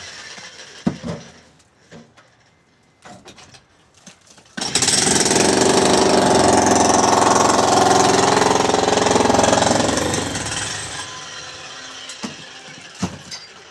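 Construction machinery: a few scattered knocks, then a loud machine run with a steady engine-like drone and hammering for about five seconds, which fades away near the end.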